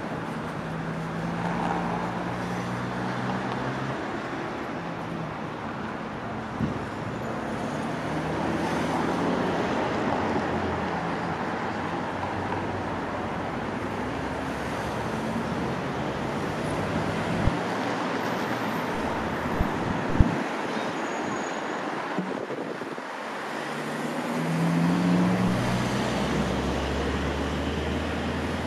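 Steady city road traffic at a street crossing: cars and buses driving past with a continuous engine hum and tyre noise. A few sharp clicks stand out midway, and a truck swells louder as it passes close near the end.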